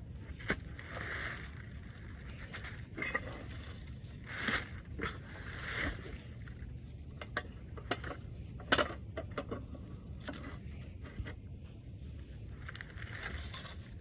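Metal clinks, knocks and scrapes from hand work on a stripped-down Wisconsin V4 engine, apparently as parts are shifted and the block is turned over. The sounds are irregular: a few scraping swells in the first half, then a quicker run of light clinks.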